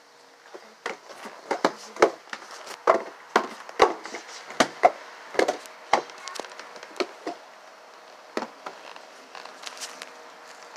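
Irregular sharp wooden knocks and clatter, one or two a second, thinning out after about six seconds, over a faint steady hum.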